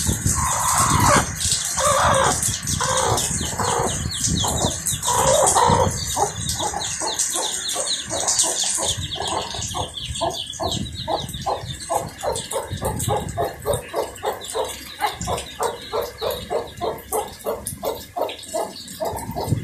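Hen clucking repeatedly. A few louder calls come first, then they settle into a steady run of short clucks, about three a second.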